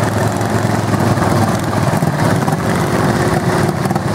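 Engines of three racing lawn mowers running at racing speed in a close pack, a loud steady engine drone.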